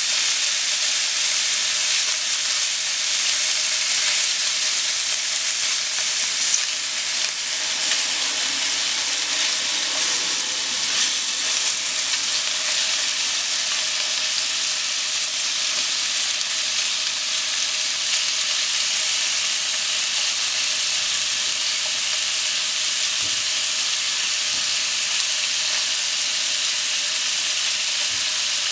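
Pork-wrapped potato sticks sizzling steadily in hot oil in a nonstick frying pan, with a few light taps as wooden chopsticks turn the rolls.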